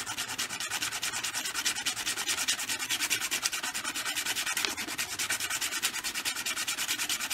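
Sandpaper rubbed rapidly back and forth by hand against the square end of a chopstick: a steady scratchy hiss of many quick strokes, shaving the end down into a V shape.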